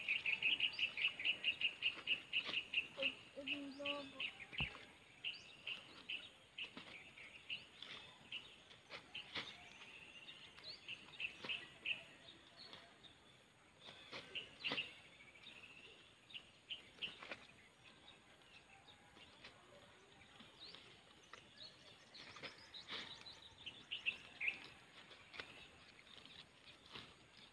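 Small birds chirping in quick, high repeated notes, densest in the first few seconds and again near the end, with a few faint scattered clicks.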